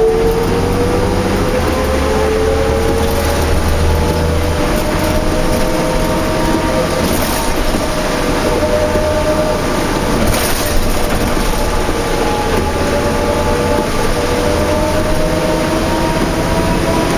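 Interior drive noise of a 2004 New Flyer D40LF bus with a Cummins ISL diesel and ZF automatic transmission under way: a low engine hum under a whine that slowly rises in pitch as the bus gathers speed.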